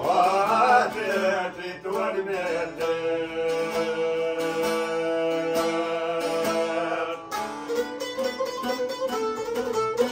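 A man sings an Albanian folk song in long, wavering held notes, accompanied by two plucked folk lutes. The voice stops about seven seconds in and the lutes play on alone.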